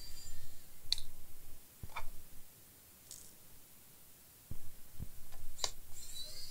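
Scattered sharp clicks and a few soft knocks at irregular intervals, with a quieter stretch in the middle: small objects being handled on a workbench.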